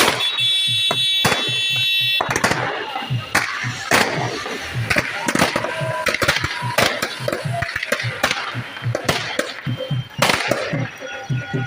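Fireworks and firecrackers going off in rapid, irregular cracks and bangs, with a high steady whistle for about the first two seconds.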